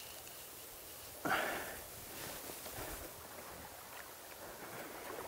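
A single loud splash of water in a creek about a second in, fading within half a second, followed by smaller splashes over the steady run of the stream.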